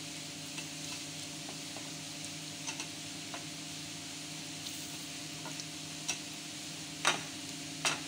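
Butter melting and sizzling in a stainless steel frying pan as a silicone spatula stirs and scrapes it, with light scattered clicks and two louder knocks of the spatula against the pan near the end.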